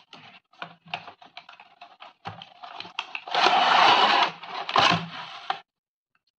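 Cardboard box being opened by hand: short scratches and clicks as the paper seal sticker is picked at and peeled, then a louder scraping rustle of cardboard and packaging about three and a half seconds in as the box comes open. It stops about a second before the end.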